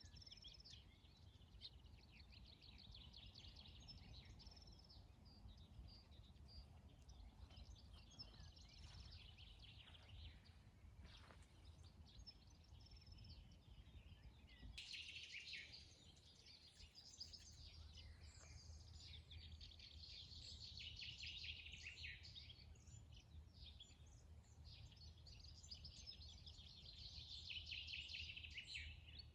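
Several songbirds chirping and singing, with quick repeated trills and tweets, over a faint low rumble of outdoor background noise. The birdsong becomes suddenly fuller and louder about halfway through.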